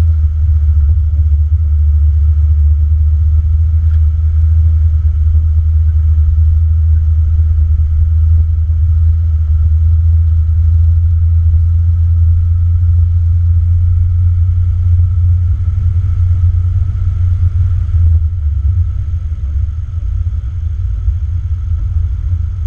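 Jeep's engine running steadily while driving on a gravel track, heard from inside the cab as a deep, constant rumble.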